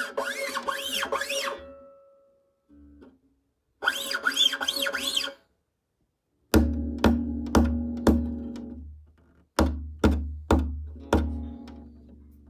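Acoustic guitar strings rubbed with fingers and nails in two scraping bursts, each about a second and a half long, with squeaky sliding whistles. These are followed by eight knocks on the hollow wooden guitar body in two groups of four, each leaving a low booming resonance.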